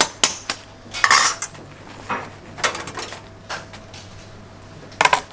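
Steel kebab skewers and tongs clinking and clattering against the metal rim of a charcoal grill as vegetable skewers are laid over the coals. There are scattered sharp metallic knocks, with a busier cluster about a second in and another near the end.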